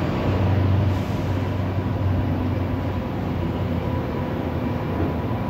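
Steady low rumbling background noise with a faint steady hum through it.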